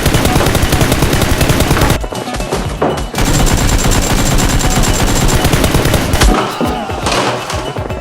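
Rapid machine-gun fire in long bursts over background music, with a short pause about two seconds in, and one heavy thump about six seconds in.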